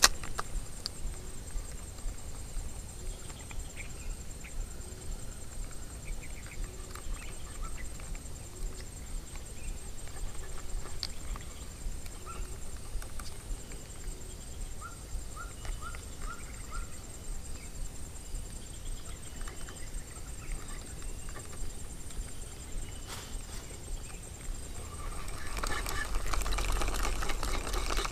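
Outdoor ambience: a steady high-pitched whine with scattered light clicks and a quick run of five short chirps about halfway through. A louder rustling noise rises near the end.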